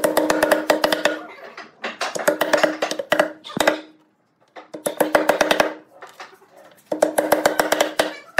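Round wooden mallet tapping small wooden keys into saw slots in the corner of a pine box. Four bursts of quick light taps, each knock with a hollow, pitched ring.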